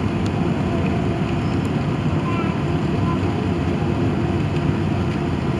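Steady cabin noise inside an Airbus A380 on approach: a low, even drone of engines and rushing air, heard from a seat over the wing.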